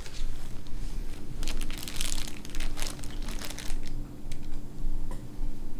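Clear zip-top plastic sandwich bag crinkling as it is handled. There is a dense run of crackles starting about a second and a half in and lasting about two seconds, then lighter crinkles, over a faint steady hum.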